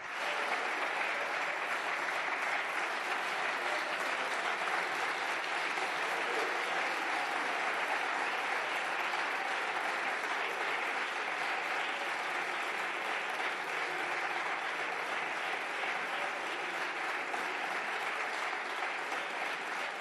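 Many people applauding in a parliamentary chamber: a dense, even clatter of clapping hands that holds at a steady level, the ovation after a deputy's speech.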